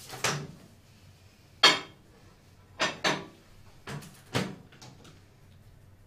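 Countertop microwave being loaded: about six separate clunks and knocks as the door is opened, the glass bowl is set inside and the door is shut, the sharpest about a second and a half in.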